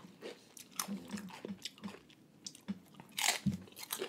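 Close-miked crunching and chewing of fried wonton-chip nachos topped with ahi poke: a run of small crackly crunches, with a louder crunch a little past three seconds in.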